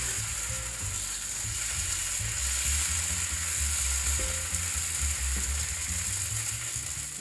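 Dosa batter sizzling on a hot cast-iron tawa as a ladle spreads it in circles.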